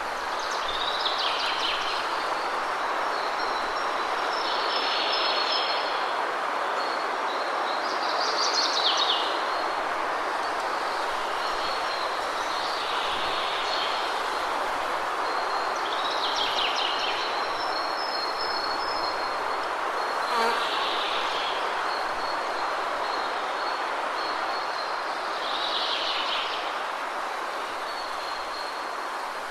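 Steady rush of a waterfall, with a bird giving short chirping calls about every four seconds, seven in all, over a thin, steady high-pitched tone.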